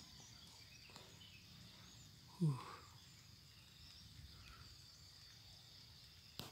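Faint open-air forest ambience with a steady high insect drone. About two and a half seconds in comes one short vocal sound falling in pitch, and there is a sharp click near the end.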